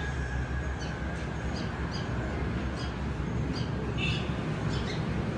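House sparrows chirping: many short, high chirps in quick succession over a steady low background rumble.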